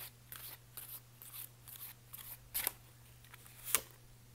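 A deck of tarot cards being shuffled by hand: a run of short papery swishes about two a second, with two louder ones near the end.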